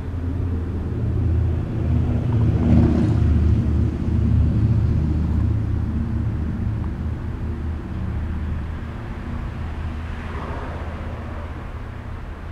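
Diesel engine of a ČD Bardotka (class 749/751) locomotive, its exhaust silenced, idling steadily with a deep, even rumble that swells a little early on and eases off towards the end.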